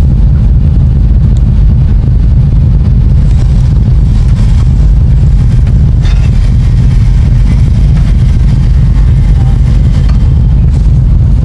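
Vehicle engine running steadily with a low, even drone, no revving.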